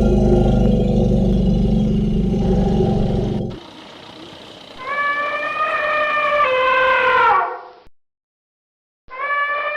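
Elephant sounds: a deep, low rumble for about three and a half seconds, then a long, horn-like trumpet call that sags slightly in pitch before cutting off. After a second of silence, a second trumpet call begins near the end.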